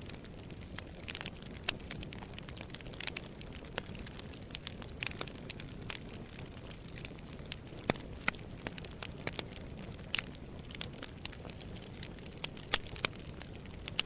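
Wood fire crackling in a fireplace: a steady low rumble of flames with irregular sharp pops and snaps, a few of them louder.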